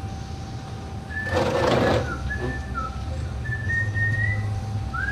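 A person whistling a few short, wavering notes, over a steady low hum. A brief rush of noise about a second in.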